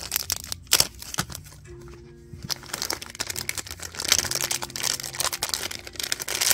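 Crinkling and rustling of a small clear plastic bag being opened and handled, over soft background music with long held notes.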